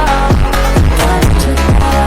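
Electronic dance music with a steady kick drum about twice a second, a deep bass and sustained synth notes.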